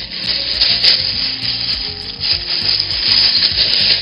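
Rough rubbing or scraping noise, uneven in strength, with soft background music underneath.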